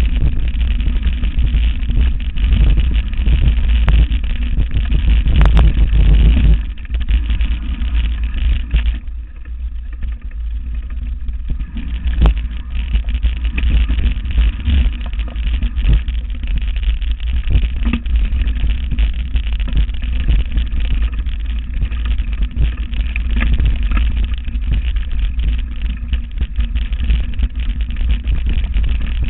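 Wind rumble and rattling from a camera mounted on a mountain bike riding a rough dirt trail, with a few sharp knocks as the bike hits bumps. The noise eases for a few seconds partway through, then picks up again.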